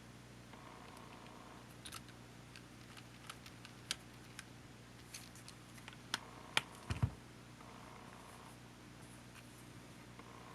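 Small clicks and taps of tools and small parts being handled while a camcorder is taken apart. Sharper clicks bunch up about six to seven seconds in, with a short low thump, over a steady low hum.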